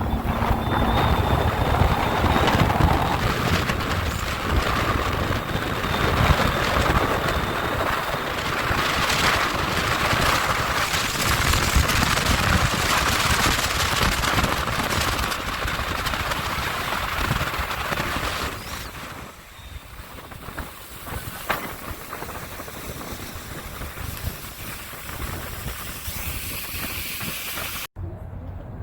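Wind buffeting the microphone over a boat running on the water, loud for most of the stretch, then dropping off sharply about two-thirds of the way through before an abrupt cut near the end.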